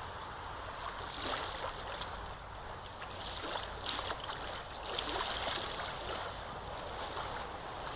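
German Shepherd digging in wet sand: its front paws scrape and fling sand in quick, irregular strokes, busiest in the middle of the stretch, over a steady background hiss.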